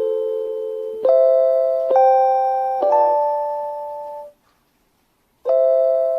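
JR Hokkaido station guidance chime for visually impaired passengers, a looping phrase of electronic bell-like tones, each struck and fading. One tone holds, then three more follow about a second apart. After a pause of about a second the phrase begins again near the end.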